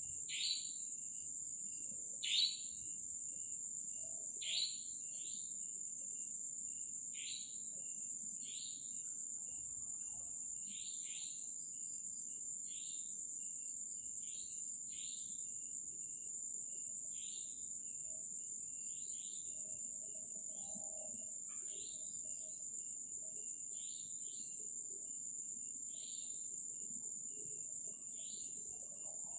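Night insects, cricket-like, keep up a steady high-pitched trill. Over it, a short falling chirp repeats every second or two, louder in the first few seconds and then fainter.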